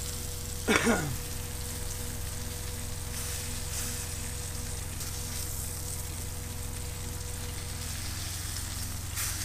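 Salmon fillets sizzling in coconut oil and ghee in a frying pan, a steady hiss over a low hum. About a second in, a brief loud sound sweeps down in pitch, and a short click comes near the end.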